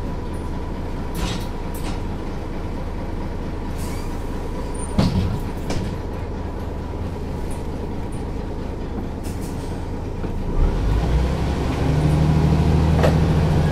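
Büssing DE double-decker bus's diesel engine running steadily, with a short knock about five seconds in. About ten seconds in the engine picks up and grows louder.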